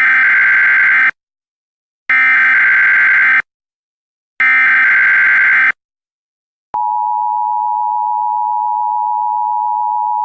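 Emergency Alert System tones: three buzzy digital header bursts of about a second each, evenly spaced, then, about seven seconds in, the steady two-tone EAS attention signal. Together they announce that an emergency alert message follows.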